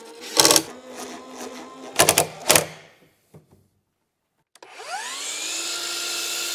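Cordless drill driving screws into a pine board in short loud bursts, twice in the first few seconds. After a moment of quiet, a DeWalt miter saw's motor spins up with a rising whine and runs steadily as it cuts a board.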